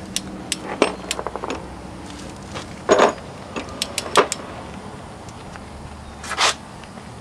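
Metal clicks and clinks of a ratchet-head torque wrench working a socket on the rear hub nut as it is tightened: scattered sharp clicks, a quick run of small ones about a second in, two louder knocks around three and four seconds, and a short rasp about six seconds in.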